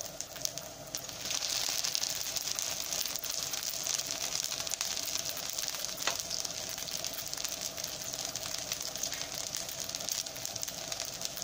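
Hot vegetable oil sizzling and crackling around egg-battered huauzontle fritters as they fry; the sizzle grows louder a little over a second in. One sharp tap of the metal spoon against the pan about six seconds in.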